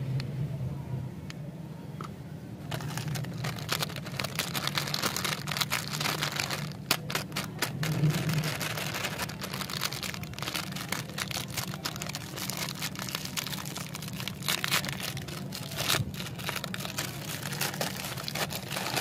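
Plastic snack-wrapper of a packaged banana wafer crinkling and crackling as it is handled and torn open by hand, starting about three seconds in. A steady low hum runs underneath.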